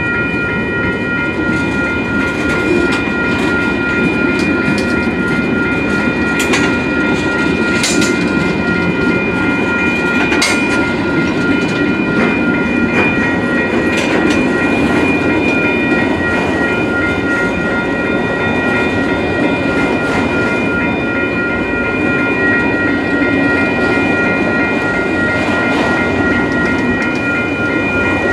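Union Pacific mixed freight train's cars rolling past on the rails with a steady rumble, with a few sharp metallic clanks between about 6 and 14 seconds in. A grade-crossing bell rings steadily over it.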